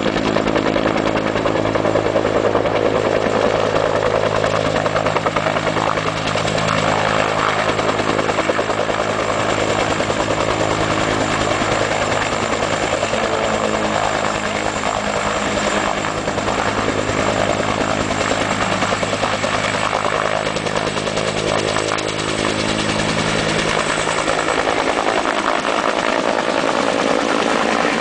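Bell helicopter with a two-bladed main rotor hovering low, then climbing out close overhead near the end; its rotor and turbine engine run steadily with a fast, even blade beat.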